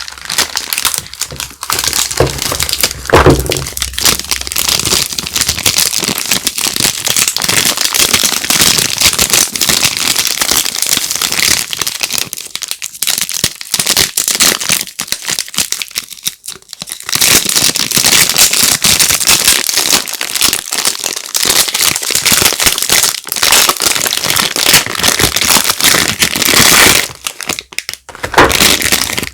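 Soap packaging crinkling and crackling loudly as it is handled and unwrapped, dense and continuous with a brief lull partway through.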